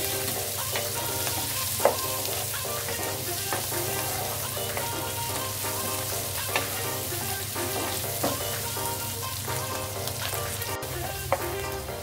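Mushrooms and garlic sizzling as they sauté in a nonstick frying pan, stirred with a wooden spoon that knocks sharply against the pan a few times.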